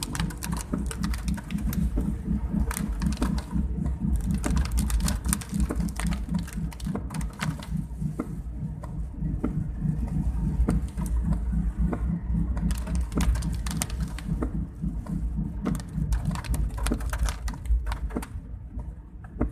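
Steady low rumble of a vehicle driving in heavy rain, with many irregular sharp ticks of raindrops striking the vehicle.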